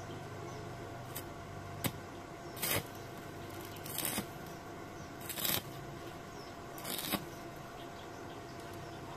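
About six short scraping sounds over a steady hum; the loudest are near the middle and about two-thirds of the way through.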